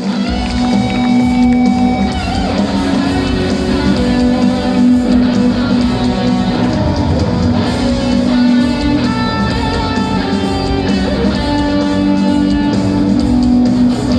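Live rock music led by an electric guitar, with a steady beat, played loud through a concert PA.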